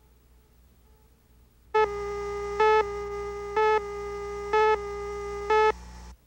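Countdown leader tone: a steady electronic tone with a louder beep about once a second, five beeps in all, starting about two seconds in and cutting off just before the end.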